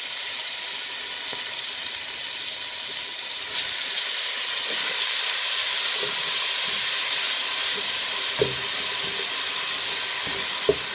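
Ginger-garlic paste sizzling in hot oil with whole spices in a steel pot: a steady hiss, with a few short knocks of a wooden spoon stirring near the end.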